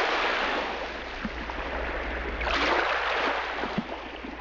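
Sea waves washing, an even wash that swells about two and a half seconds in, over a low steady hum.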